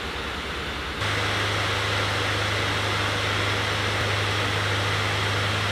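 Clevo NH58AF gaming laptop's cooling fans running under a full CPU+GPU stress test, a steady rush of air. About a second in it steps up louder, with a low hum joining in, as the laptop goes from entertainment mode to performance mode and its fans spin faster.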